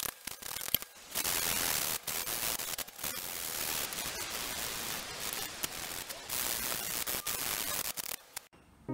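Sandpaper rubbed back and forth over a wooden saw handle to strip old lacquer: a steady rasping hiss with a few short breaks at the start, stopping suddenly near the end.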